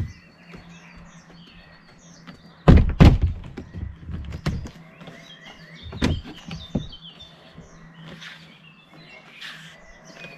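Thuds and knocks of a Keter Darwin plastic shed's roof panels being handled and pushed into place, a loud cluster about three seconds in and another about six seconds in. Small birds chirp throughout.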